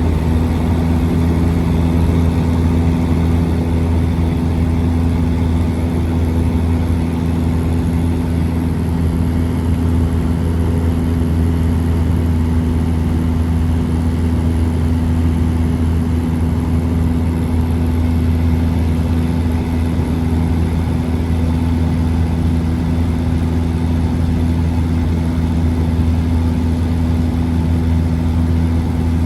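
Small aircraft's engine and propeller droning steadily in level flight, one even low hum that never changes.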